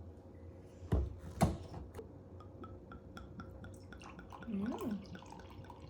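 Two sharp clinks of a glass bottle, then a drink trickling from the bottle into a glass in small quick drips, about five a second. A short rising-then-falling tone comes near the end.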